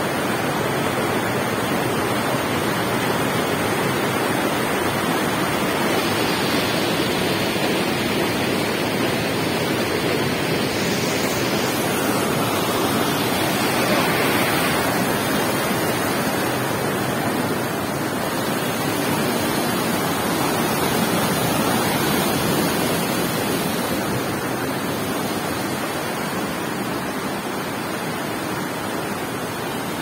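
Fast mountain river rushing over boulders in whitewater rapids, a steady, even rush of water.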